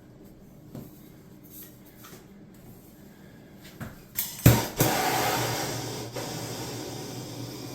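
Plumbing torch being lit to solder a copper pipe joint: a few sharp clicks and a pop about four and a half seconds in, then the steady hiss of the flame.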